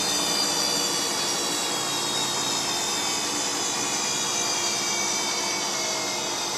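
Bosch Classixx 5 washing machine in its spin cycle: a steady motor and drum whine over a rushing hiss, its pitch slowly falling as the drum winds down.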